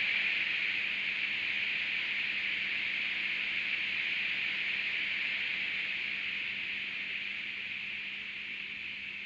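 An ÖBB class 1010 electric locomotive's cooling-fan (blower) sound at fan stage 2, played by a ZIMO MS500 sound decoder through the tiny 12 x 8 x 5 mm speaker of a stationary Fleischmann N-scale model. It is a steady hiss with a faint low hum underneath, slowly fading.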